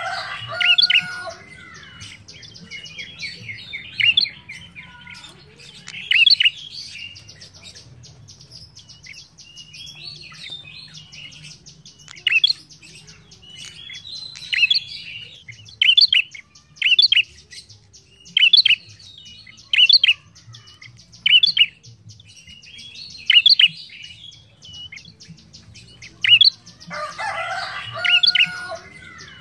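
Prenjak calling: sharp, high chirps repeated about once a second in runs, with busier bursts of chattering near the start and near the end.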